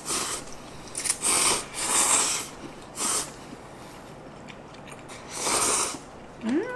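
Two people slurping instant ramyeon noodles from chopsticks: about six separate short slurps, with a brief hummed 'mm' that rises and falls in pitch near the end.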